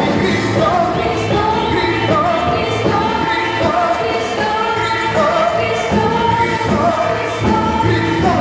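Live church worship band playing with a group of singers: sung voices over drum kit, keyboard and electric guitars.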